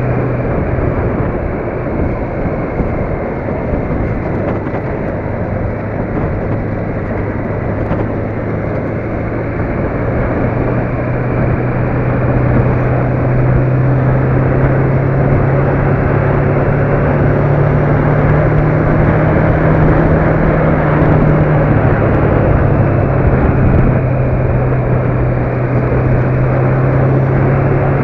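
Motor vehicle driving on a road: a steady engine drone with tyre and road noise, the engine note rising slightly and getting a little louder partway through.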